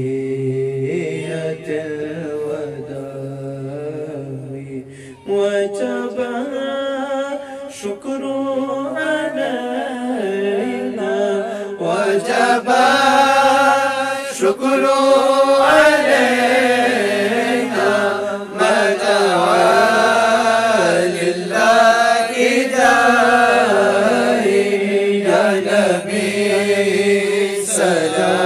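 A group of men chant a devotional song together. It grows louder about five seconds in, and again at about twelve seconds, as more voices join.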